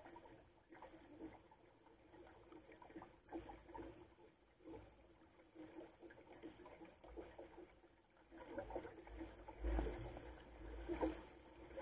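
Lake water splashing and gurgling against the hull of a Goat Island Skiff sailing dinghy under way, in irregular small slaps. It gets louder and rougher from about eight and a half seconds in.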